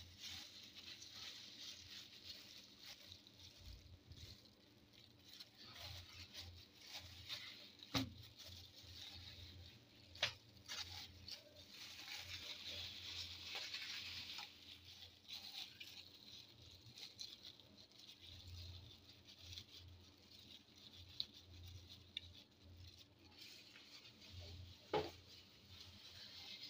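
Thin plastic food-prep gloves crinkling and rustling faintly as hands press and work soft dough over flatbreads, with a few sharper taps.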